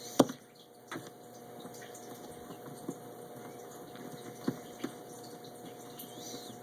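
Plastic toy parts being handled and fitted together: a sharp click just after the start, then scattered lighter clicks and taps, over a faint steady hum.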